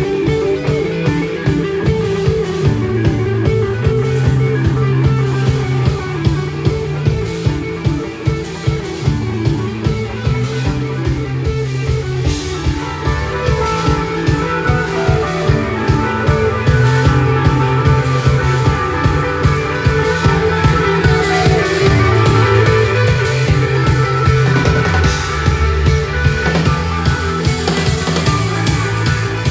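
Live rock band playing an instrumental passage: guitar and drum kit over a steady beat, with a higher melodic line coming in about halfway through.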